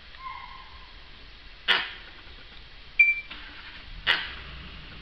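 Dholes calling at a kill: a short held whistle near the start, a brief high whistle partway through, and two sharp yelping squeaks.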